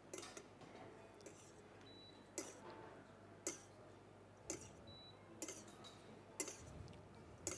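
Faint metallic clicks of a spoon against a sauté pan, about one a second, as veal is cooked on an induction hob. A faint short high beep sounds twice.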